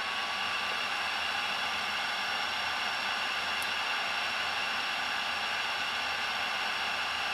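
Dental LED curing light running, giving a steady hiss with a faint high tone while it cures a layer of composite.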